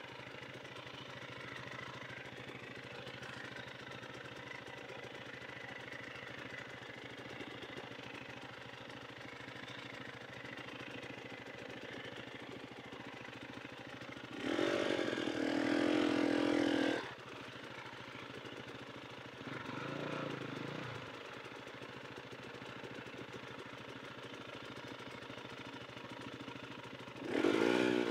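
Dirt bike engine running steadily at low revs, revved up loudly for a couple of seconds about halfway through, briefly again a few seconds later, and once more near the end.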